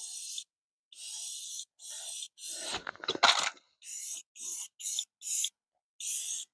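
Aerosol spray-paint can spraying purple paint onto a transmission case in short bursts: about eight hisses of roughly half a second each. A brief clatter comes about three seconds in.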